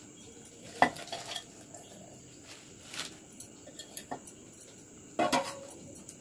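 Handfuls of fresh spinach leaves being pushed into a stainless steel mixer-grinder jar: leaves rustling, with a few clinks and knocks on the steel jar and bowl, the loudest about a second in and a short cluster near the end.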